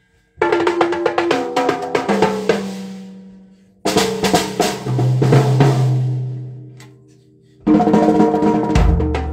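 Acoustic drum kit played in three short bursts of hits on drums and cymbals, starting about half a second in, near four seconds and near eight seconds. Each burst is left to ring out and die away before the next.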